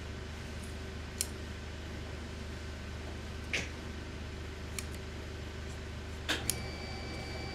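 Large tailor's shears cutting through a mink pelt, giving a few sharp snips and clicks, two of them close together near the end, over a steady low mechanical hum. A thin, high, steady whine starts near the end.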